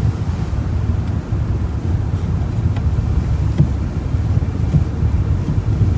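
Steady low rumble of the car's engine, heard from inside the car, with wind buffeting the microphone.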